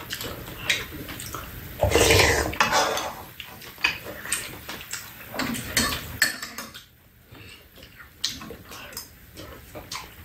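Metal spoons clinking and scraping against ceramic bowls and a frying pan as two people eat, in irregular light clicks with a louder stretch about two seconds in.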